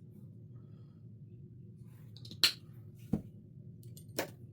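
Acrylic paint bottles and palette being handled while mixing paint: three sharp clicks or taps, the loudest about two and a half seconds in, the others near the three- and four-second marks.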